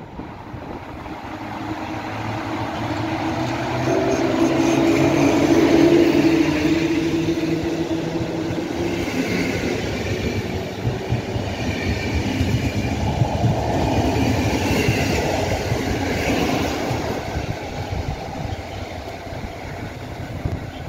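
PKP class EP07 electric locomotive hauling an Intercity train along the platform, growing louder over the first few seconds as it draws level, then the coaches rolling past with their wheels clattering over the rail joints.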